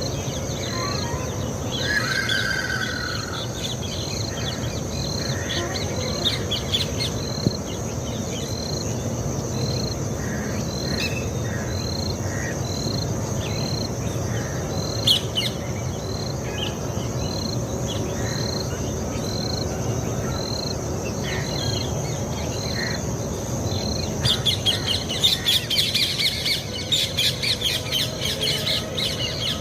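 Birds calling over a steady high insect drone: a short high note repeats about once a second. About 24 seconds in, a loud burst of rapid, shrill chirping calls starts, from rose-ringed (ringneck) parakeets.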